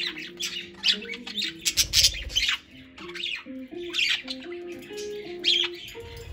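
Budgerigars chirping and squawking in many short, sharp calls over background guitar music, with a brief low rumble about two seconds in.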